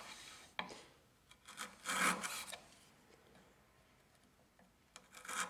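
Chisel paring a tenon cheek across the grain by hand, slicing off thin wood shavings: a short cut about half a second in, a longer slicing stroke around two seconds in, and another cut starting near the end.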